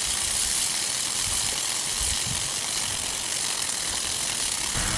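A vintage Paul Zeyssolff Model B lawn sprinkler running: a steady hiss of the water jet from its nozzle, with the ratcheting of its geared drive mechanism.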